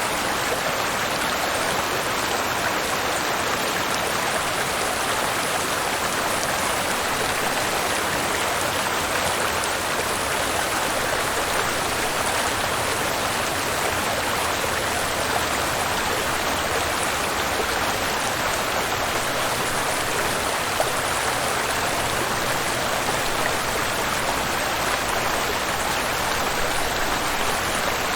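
Waterfall and flowing river water rushing steadily.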